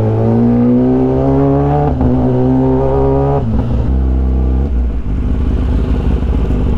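Kawasaki Ninja ZX-10R's inline-four engine pulling with rising pitch, dipping once briefly about two seconds in and climbing again, then dropping sharply in pitch about three and a half seconds in as the throttle closes, settling to a low, uneven near-idle as the bike rolls slowly.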